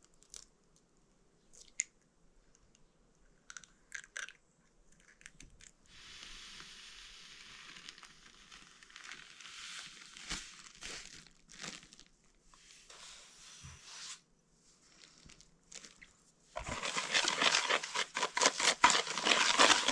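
Egg yolks being beaten with a hand whisk in a bowl: a loud run of rapid scraping strokes that starts about three-quarters of the way through. Before it, scattered clicks and a softer rustling hiss.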